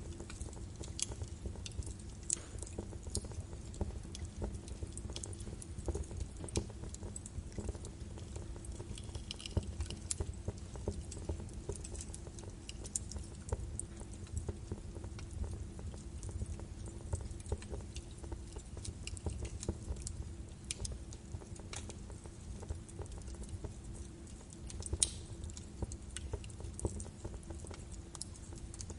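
Birch wood fire burning in a fireplace, crackling with irregular small pops and a few sharper snaps over a low steady rumble of the flames.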